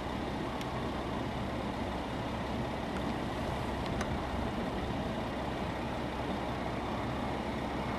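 Distant jet engines of a B-1B Lancer bomber on the runway, a steady low rumble with a faint hiss.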